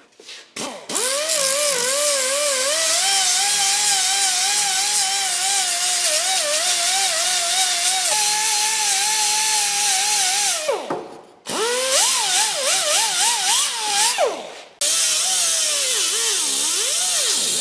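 Air die grinder with an abrasive pad whining as it cleans rust out of the wheel-bearing bore of a steering knuckle, its pitch wavering as it is pressed against the metal. It stops briefly about 11 seconds in and again near 15 seconds, then starts up again each time.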